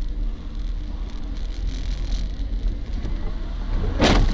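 Steady low engine and road drone inside a moving vehicle on a wet road. Near the end, a short, loud noisy burst cuts across it.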